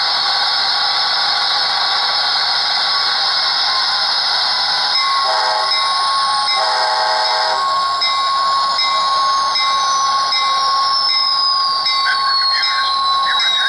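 Simulated sound of a Metra MP36 diesel locomotive from an HO-scale model's custom sound setup. A steady engine hiss runs throughout. About five seconds in come two horn blasts and a bell that keeps ringing evenly, while a thin whine slowly falls in pitch.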